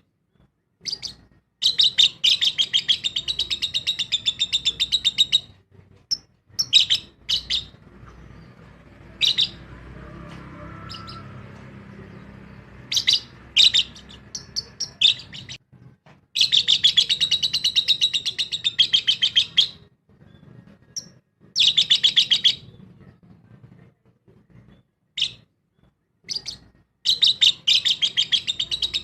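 Lovebirds chirping in rapid, rattling runs of high repeated notes lasting a few seconds each, broken by single sharp calls and short pauses.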